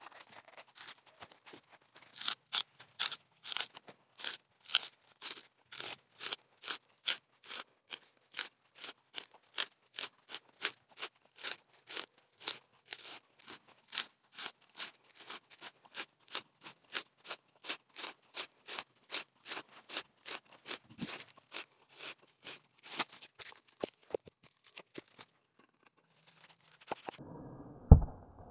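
Hand-turned settler's wrench auger bit boring into a log round: rhythmic crunching scrapes as the bit shaves the wood, about three a second. Near the end the sound turns muffled and a single heavy thump comes.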